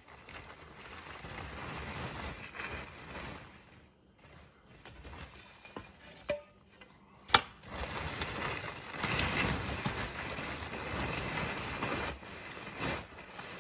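Plastic tarp rustling and crackling as it is dragged and folded back off a snow-covered pile, in two long stretches, with a sharp crack a little after seven seconds in.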